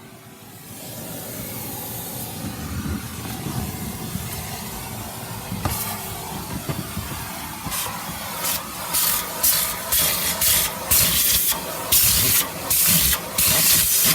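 Vacuum cleaner running with a steady hiss. From about halfway in its nozzle is worked back and forth over the car's carpet in quick rhythmic scrubbing strokes, which get louder toward the end.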